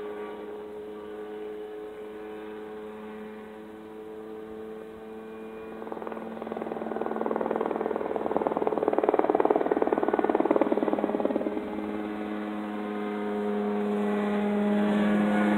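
Ultralight Mosquito helicopter with a Rotax 503 DCDI two-stroke twin engine flying at a distance: a steady engine drone with rotor noise. It swells into a louder, rougher stretch in the middle, then holds a steadier, louder drone near the end as the helicopter comes closer.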